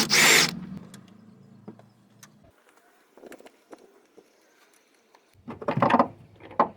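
Short bursts of a power wrench running as bolts are loosened on the engine: one at the start and two more near the end, with a quiet stretch between.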